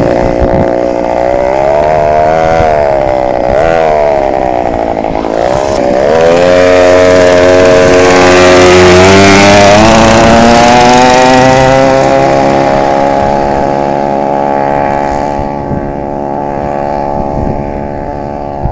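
Mini bike engine revving. Its pitch rises and falls with the throttle for the first few seconds, then climbs steadily for several seconds as the bike accelerates, and grows fainter as it rides off near the end.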